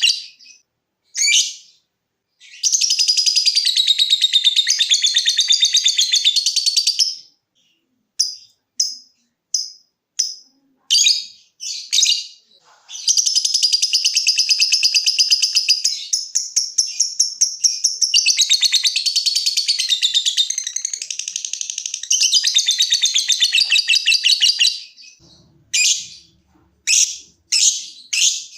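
Lovebird giving long, fast, high-pitched chattering runs (the "ngekek" prized by keepers), with short separate chirps ("ngetik") between them: one run a few seconds in, a longer one through the middle, and a string of short chirps near the end.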